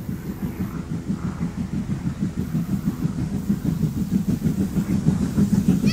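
Steam exhaust beats of 0-6-0 pannier tank No. 1501 working a train of coaches toward the listener: a rapid, even chuff that grows steadily louder as it approaches.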